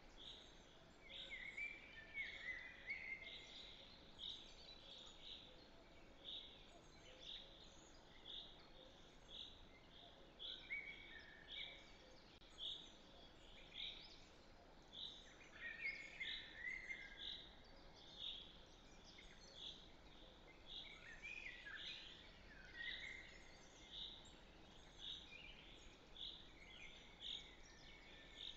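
Faint outdoor birdsong: one bird repeats a short high note about one and a half times a second, while another bird adds brief twittering phrases now and then.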